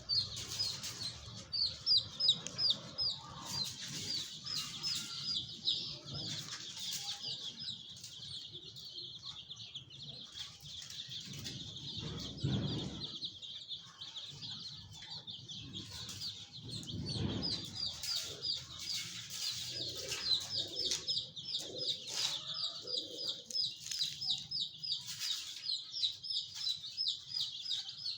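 Many chicks peeping constantly, their high, quick cheeps overlapping. Two low rumbling noises come partway through.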